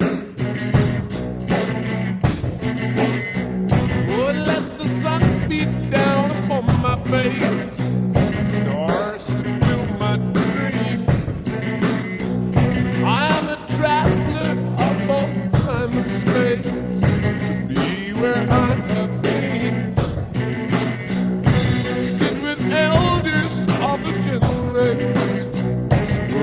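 Rock music with a steady beat, with gliding guitar or vocal lines over it.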